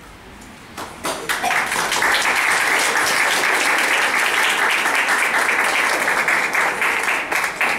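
Audience applauding: a few first claps about a second in, filling in to steady applause that starts to die down right at the end.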